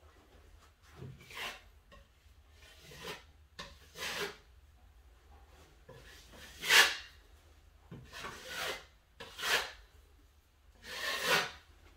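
Steel drywall knife scraping wet joint compound across the wall, about seven separate strokes, the loudest about seven seconds in.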